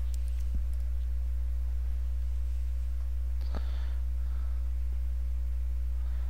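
Steady low electrical hum with a ladder of overtones, typical of mains hum in a recording. Two faint clicks, one about half a second in and one a little past halfway.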